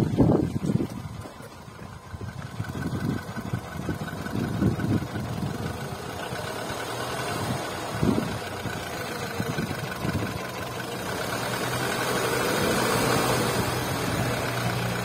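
VW Polo 9N3's 1.6 BTS petrol four-cylinder engine idling, heard from the open engine bay. A few low thumps come in the first second, and the running swells slightly in loudness about two-thirds of the way through.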